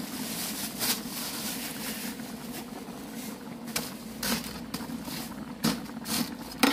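Large aluminium pot of soup at a hard rolling boil, a steady low rush of bubbling, with a metal ladle clinking against the pot a few times as it is stirred.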